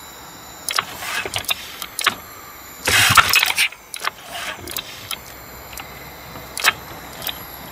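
Honda BF5 single-cylinder four-stroke outboard, running on butane fed into its air intake, being pull-started: a sharp pull on the recoil starter cranks it briefly about three seconds in, a weaker crank follows, and it does not keep running. Scattered clicks and knocks of hands working the controls come around the pulls.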